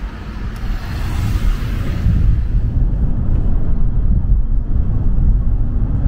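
Road traffic at a street crossing, a steady low rumble, with wind buffeting the microphone; it grows louder over the first couple of seconds.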